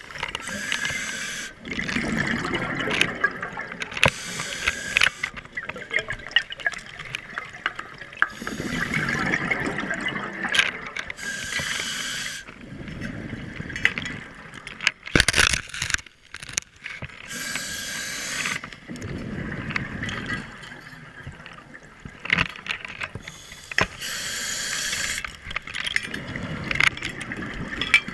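Scuba diver breathing through a regulator underwater: a hissing inhale and a rush of exhaled bubbles return every few seconds. A cluster of sharp knocks comes about halfway through.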